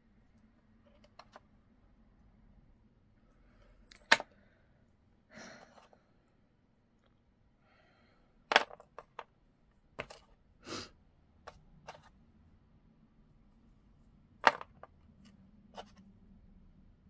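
Scattered sharp clicks and light clinks of small beads, metal findings and jewelry pliers being handled on a hard work surface, with a few brief rustles between. Three clicks stand out as much louder: about a quarter of the way in, about halfway, and near the end.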